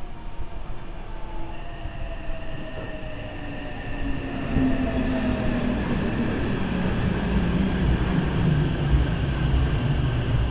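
Hankyu electric train passing through the station without stopping, its motor whine gliding in pitch over a rumble of wheels on rail that swells louder about four seconds in.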